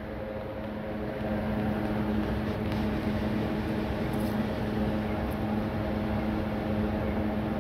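Steady machine hum with a constant low tone, holding even throughout.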